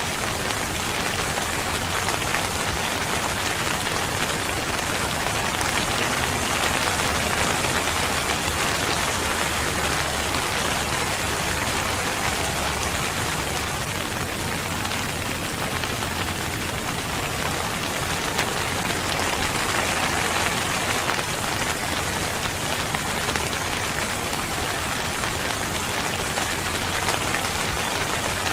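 Steady rain falling on a surface, a dense, even patter of many drops.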